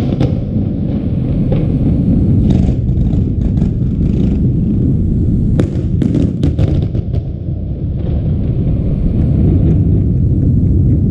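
Fireworks display: scattered sharp cracks and pops, bunched in quick clusters, over a continuous low rumble of bursting shells.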